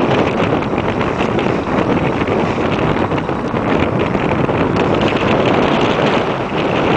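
Wind buffeting the camera microphone: a loud, steady rush of noise.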